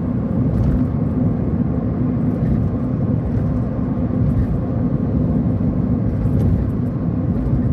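Steady road noise of a moving car heard inside the cabin: engine and tyres running at a constant cruising speed.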